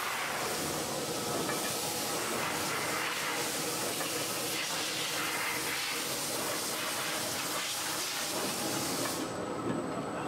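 WP TWS 9-pocket dough divider-rounder running, with a steady hiss over its mechanical noise. The hiss drops away about nine seconds in.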